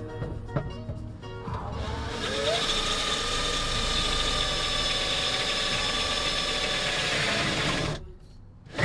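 Cordless drill motor running for about six seconds with a steady whine, speeding up briefly near the start, then stopping abruptly near the end.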